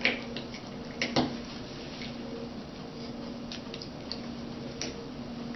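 Light plastic clicks and taps from handling a variable pipette at a plastic tube rack, with two sharper clicks about a second apart near the start and fainter ticks after, over a steady low hum.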